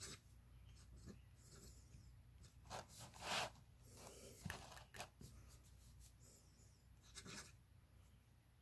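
Faint scratching of a Wahl all-metal fountain pen's nib drawn across paper in a few short strokes, the loudest about three seconds in.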